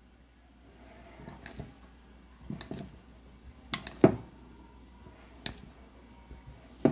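A metal spoon stirring salad in a glass bowl, knocking and clinking against the glass several times, loudest about four seconds in.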